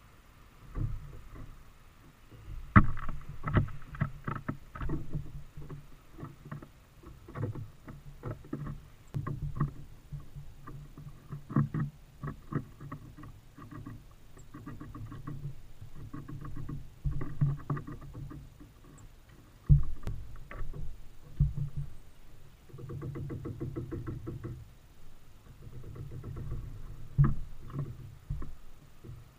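Tufted titmice at a bird feeder: louder knocks as they land, and bursts of rapid, evenly spaced tapping as they peck at the feeder, with heavy thuds carried to the camera through the feeder.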